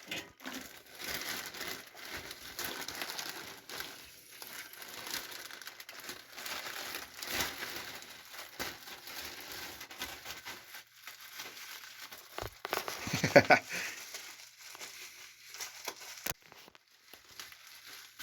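Packaging being unwrapped by hand: crinkling and rustling of wrapping with some tearing of taped packing. About two-thirds of the way through there is a short, louder squeak, the loudest moment.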